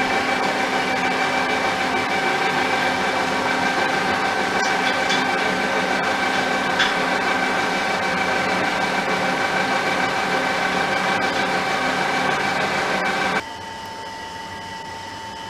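Metal lathe running with a drill bit in its spindle-mounted drill chuck, drilling into a steel workpiece: a steady machine whine with several held tones. It stops abruptly about 13 seconds in, leaving a quieter steady background hum.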